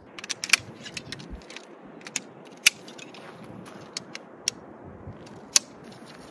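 Sections of a metal tent pole clicking together as the pole is assembled: a string of sharp metallic clicks at irregular intervals over a steady hiss of wind.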